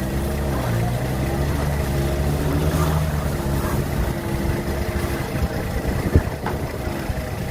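Engine running steadily, its pitch shifting slightly in the first second, with a single sharp knock about six seconds in.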